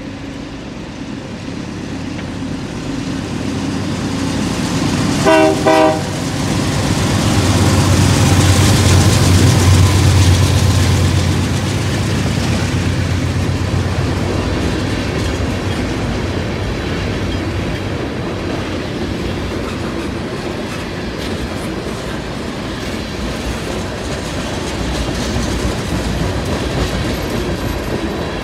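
A GE C40-8W-led diesel freight train passing: two short locomotive horn blasts about five seconds in, then the locomotives' 16-cylinder diesel engines go by with a deep rumble. After that comes the steady rolling clickety-clack of tank cars and covered hoppers over the rail joints.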